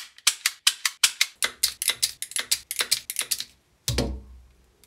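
Ratcheting ferrule crimping tool clicking rapidly, about six sharp clicks a second, then a heavier clunk near the end.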